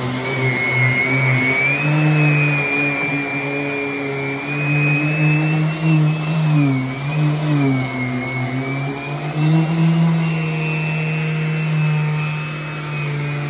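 Random orbital sander running on a wooden floor, with a vacuum dust-extraction hose drawing through it. It makes a steady motor hum and a high whine, and the pitch drifts gently up and down as it works.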